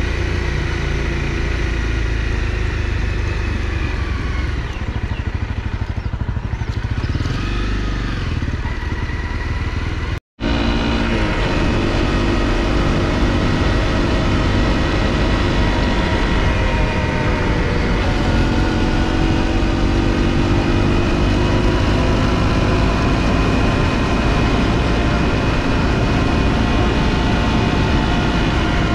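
Honda CRF250L's single-cylinder engine running as the motorcycle is ridden, its pitch rising and falling with the throttle. The sound cuts out for a split second about ten seconds in, then the engine carries on.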